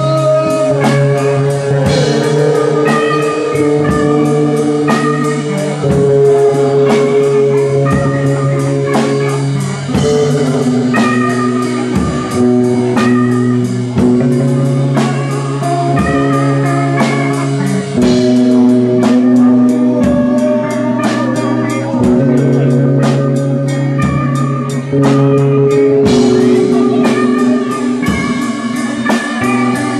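Live rock band playing loudly: electric guitar and bass guitar over a Premier drum kit.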